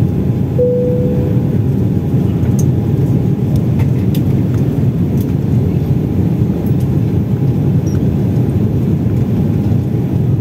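Steady low rumble of an airliner's cabin in flight, from the engines and the air rushing past the fuselage. A short clear tone sounds about half a second in.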